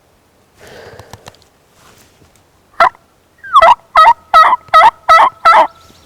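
Turkey yelping: a single sharp note, then a run of six evenly spaced, loud, close yelps.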